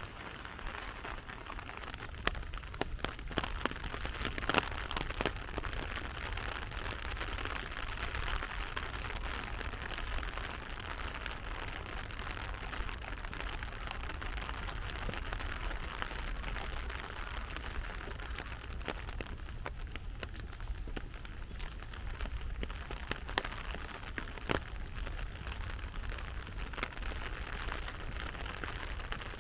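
Heavy rain falling steadily, a dense hiss broken by many sharp, scattered drop impacts.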